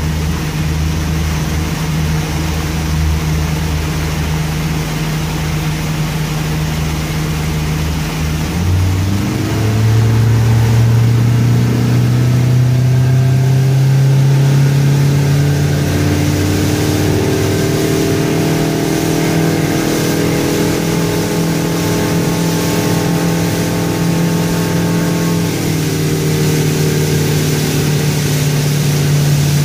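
Boat engine running at a slow cruise, then throttled up about nine seconds in, its pitch rising over several seconds as the boat speeds up to about 30 mph, then running steadily at high speed.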